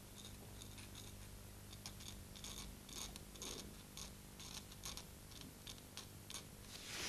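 Very sharp knife blade scraping across the surface of an inked bromoil print, a run of short, faint scratches at an irregular pace, the loudest near the end. Each stroke removes ink and part of the gelatine to cut a highlight line.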